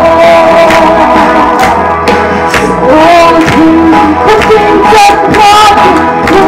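A song performed live: a melody sung over instrumental accompaniment, loud and continuous.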